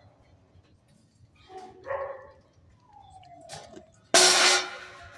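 Dogs barking and whining in a shelter kennel: a short bark about two seconds in, a falling whine around three seconds, then a loud, sudden burst about four seconds in that rings on briefly.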